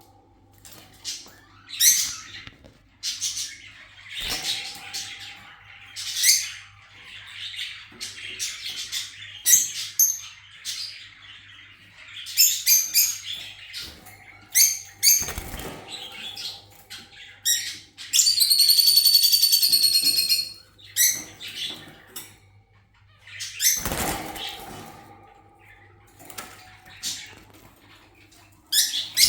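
Kakariki parakeets chirping in many short, high calls, with one longer steady call of about two seconds a little past the middle. A few sharp knocks fall among the calls.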